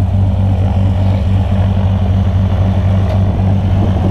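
Single-engine propeller plane running on the ground, a loud, steady low drone that doesn't change.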